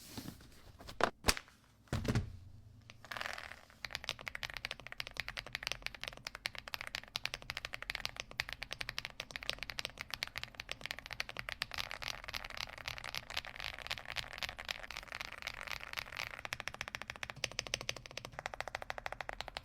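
Mechanical keyboard being typed on fast, a dense run of clacking keystrokes that starts about four seconds in, after a few separate clicks and a knock.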